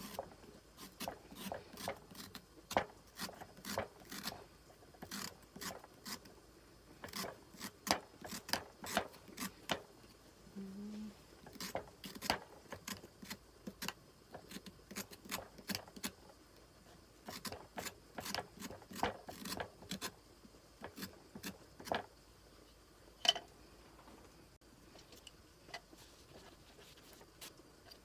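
Irregular light clicks, knocks and clatter of small hard objects being handled, with short pauses between runs.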